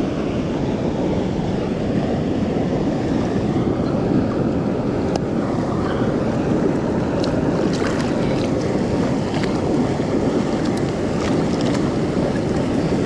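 Wind buffeting the microphone: a steady low rushing noise, with a few faint clicks.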